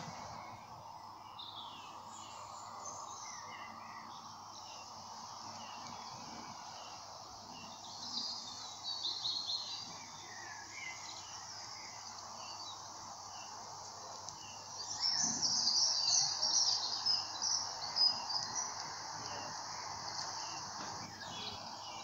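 Forest ambience: a steady insect drone with several birds chirping and calling. A run of high chirps comes about eight seconds in, and the loudest, busiest chirping about fifteen to eighteen seconds in.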